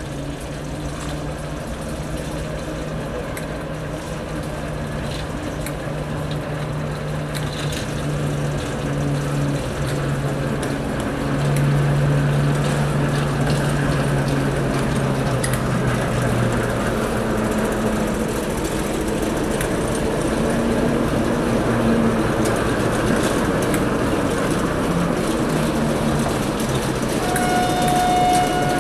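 Heritage diesel train engine running and growing louder as the train approaches, its engine note changing partway through. A short single-note horn blast sounds near the end.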